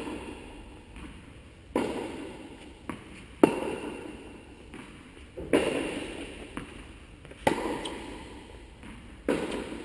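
Tennis ball struck back and forth in a rally: five sharp racket-on-ball pops about two seconds apart, each ringing out in the long echo of a large indoor hall, with fainter ball bounces between them.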